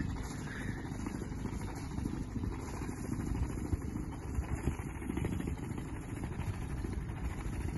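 Low, steady drone of a sailboat's small Yanmar inboard diesel as the boat motors slowly across the water.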